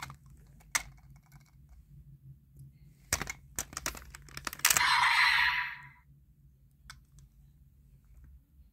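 Sharp plastic clicks of toy hammer pieces being plugged together, a quick cluster of them about three seconds in. Then comes a second-long buzzy burst of electronic sound effect from the toy's small speaker, the loudest sound here.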